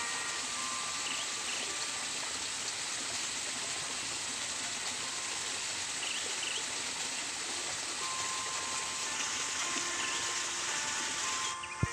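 Steady rush of a small stream flowing, with a few faint bird chirps.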